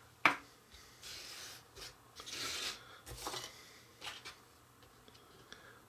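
Small aluminium Easy-Bake baking pans being handled on a paper-covered tabletop. A sharp metallic tap as a pan is set down, then several short spells of soft scraping and rustling as pans slide across the paper, and a few light clicks.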